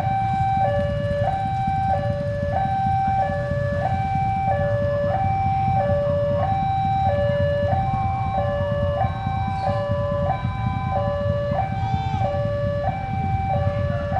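Railway level-crossing warning alarm sounding for an approaching train: an electronic two-tone signal alternating steadily between a higher and a lower note, each held about two-thirds of a second, over a steady low rumble.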